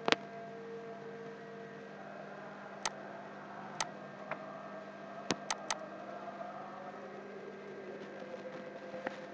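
Computer mouse clicks: about eight sharp, separate clicks, three in quick succession a little past the middle, over a steady low hum and hiss.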